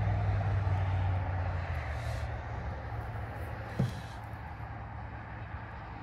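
A motor vehicle engine running steadily in the background, a low even hum that eases off a little after the first couple of seconds, with a single brief click about four seconds in.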